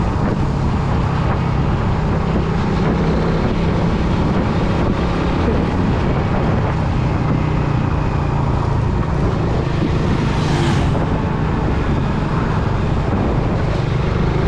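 Motorcycle engine running steadily at cruising speed, with wind rushing over the microphone. A brief rushing hiss about ten seconds in.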